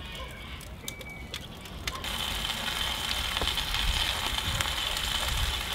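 Wood fire crackling in a brick oven, with a few sharp pops; about two seconds in a steady high hiss comes in over a low rumble.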